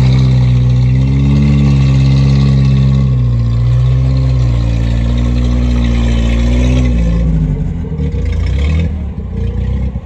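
Exhaust of a lowered classic JDM station wagon running at low, steady revs as it rolls slowly past close by. The note dips briefly about three seconds in and dies down after about seven seconds.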